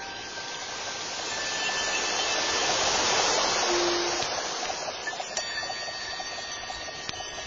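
Hot thermal water pouring from a spout into a marble bathtub: a steady rushing hiss that swells about three seconds in and then eases off.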